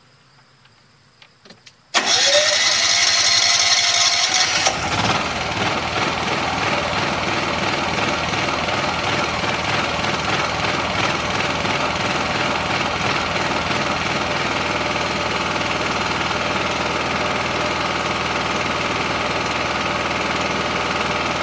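Honda EM5000is generator engine, converted to run on propane with no gasoline in its tank, starting up about two seconds in. It runs loud with a rising pitch for a couple of seconds, then settles to a steady run.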